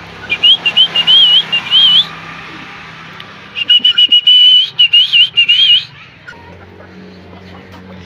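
Helmeted guinea fowl calling in two bouts of rapid, high-pitched, wavy notes, the first starting just after the start and the second about three and a half seconds in.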